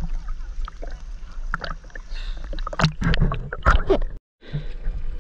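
Small waves slapping and sloshing against a waterproof action camera held at the water's surface, with irregular splashy clicks over a steady low rumble. The sound cuts out for a moment just after four seconds in.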